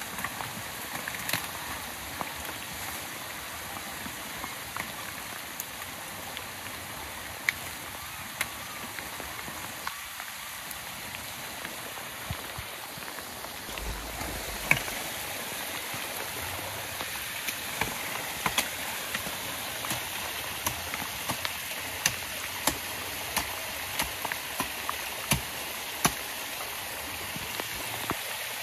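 Steady hiss of rain, with many sharp short taps over it that come more often in the second half.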